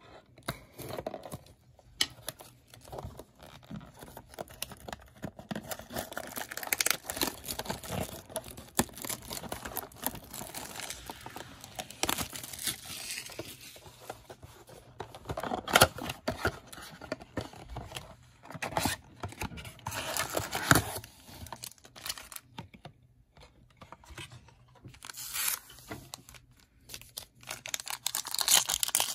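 Shrink-wrapped cardboard blaster box of trading cards being torn open and its foil card packs handled: irregular crinkling, rustling and tearing, with a few sharp clicks. Near the end a foil card pack is ripped open.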